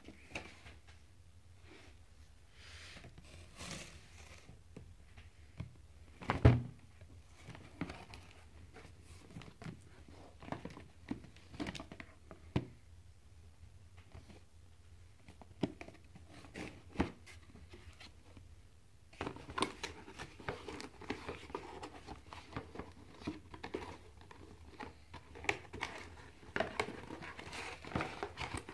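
Cardboard boxes and packaging handled by hand: scattered taps and knocks on cardboard, with one louder thump about six seconds in. For the last third, plastic wrapping crinkles and rustles almost without a break.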